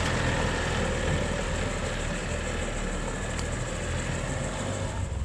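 Mitsubishi Triton ute's engine running steadily at low revs as the ute crawls slowly up a rutted dirt track.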